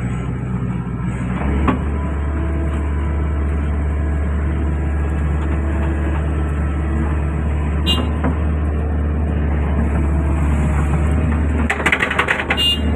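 Excavator's diesel engine running steadily while working, its low drone stepping up slightly a second and a half in. A sharp metallic knock comes about two seconds in, another near the middle, and a quick burst of clanking near the end.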